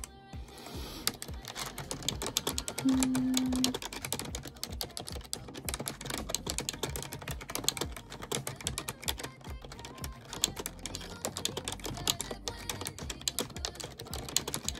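Typing on a computer keyboard: a steady, irregular run of quick key clicks, with a brief low tone about three seconds in.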